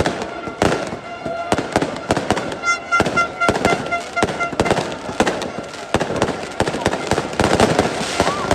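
Firecrackers banging rapidly and irregularly, several cracks a second, over the noise of a large crowd. A pulsing high tone sounds for about two seconds near the middle.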